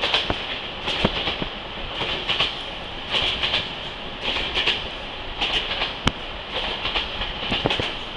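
Passenger train running along the track, heard from aboard a carriage: a steady rushing hiss that swells and fades, with the wheels clacking over rail joints about once or twice a second.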